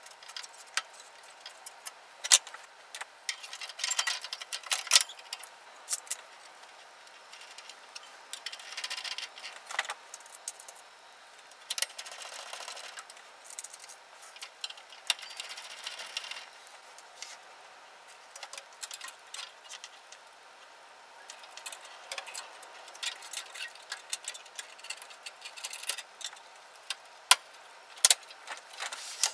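Hands handling the circuit boards and sheet-metal chassis of an opened Denon AVR-2802 receiver: irregular sharp clicks and knocks, a few of them loud, with stretches of rustling and scraping.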